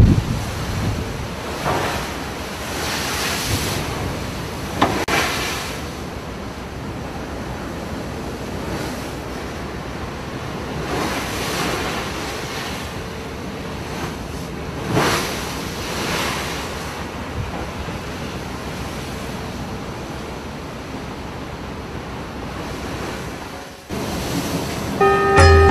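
Wind buffeting the microphone and river water lapping at the bank and the barge's hull, a steady rushing that swells and eases every few seconds.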